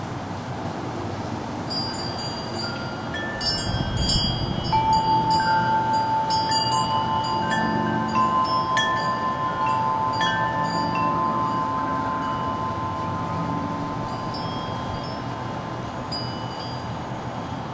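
Wind chimes stirred by the breeze: a flurry of bright strikes, then one low tone that rings on for several seconds, fading to an occasional light strike near the end.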